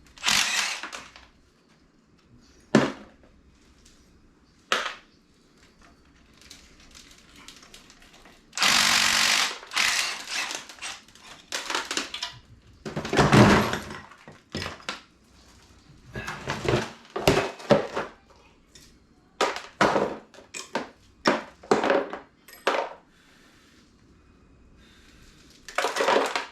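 Tools working the motor mount bolts off a 5.3 LS engine: an irregular run of metal clanks and knocks, with a longer burst of about a second around nine seconds in and another loud one a few seconds later.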